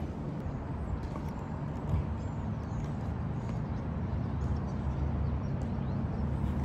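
Steady low outdoor rumble, with a single soft thump about two seconds in and a few faint high chirps.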